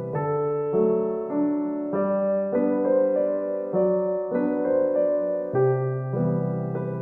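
Background piano music: soft sustained chords and notes struck about every half second to a second.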